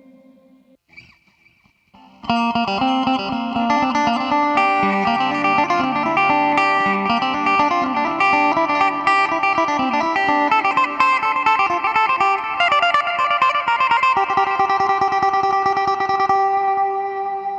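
Electric guitar played through a Boss GT-3 multi-effects processor preset. After a couple of seconds of near quiet, a fast run of picked notes starts. It settles on a held note that fades away near the end.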